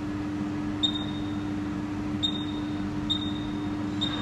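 Resistance spot welder's control panel beeping at key presses as the weld current and time are set: four short, high beeps at uneven intervals over a steady electrical hum.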